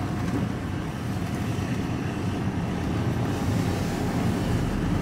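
Steady engine and road noise heard from inside a moving vehicle's cabin, gradually getting a little louder with a deeper rumble near the end.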